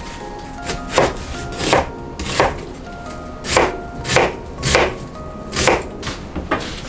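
Kitchen knife chopping an onion on a cutting board: about eight separate, unevenly spaced strokes.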